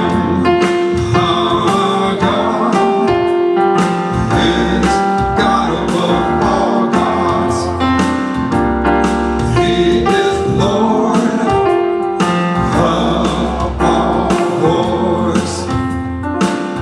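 Gospel praise-and-worship music: electric keyboard chords over a sustained bass, with singing at times.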